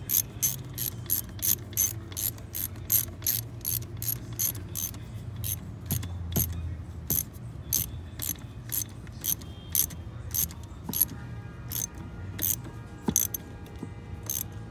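Hand socket ratchet clicking as it turns the fasteners of a new A/C expansion valve on the evaporator core. The clicks come fast and even, about three a second, then slow and turn irregular in the second half.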